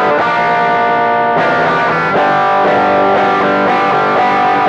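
Electric guitar played through the Kemper Profiling Amplifier's TS9 Tube Screamer overdrive emulation into a Hiwatt DR103 amp profile. It rings out sustained overdriven chords that change about one and a half and two seconds in.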